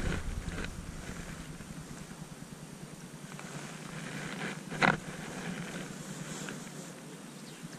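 A small Thracian shemaya splashes once at the water's surface, sharp and short, about five seconds in as it is lifted out on a light line. Before that, low wind rumble on the microphone fades away, and faint rustles and ticks follow.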